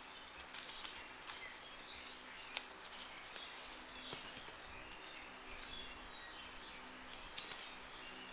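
Faint birds chirping in the background, with a few sharp clicks and a faint steady low hum.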